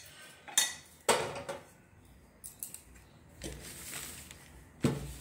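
Stainless steel bowls and a steel wok clanking as they are handled and set down on the stove and counter. There are several sharp metallic knocks, two close together in the first second or so and the loudest near the end.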